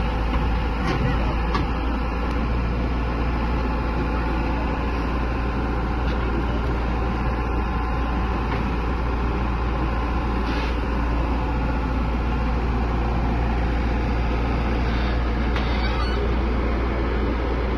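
Heavy diesel engine running steadily with a deep, even rumble.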